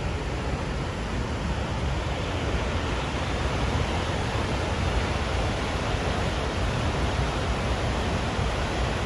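A waterfall on the McKenzie River: a steady, even rush of falling water.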